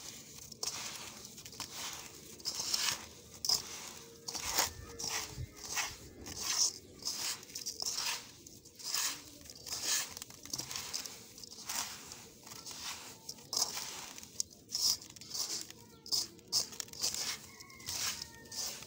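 Damp, gritty yellow sand crunching and crumbling as a hand squeezes and presses into it: irregular gritty crackles, a few each second.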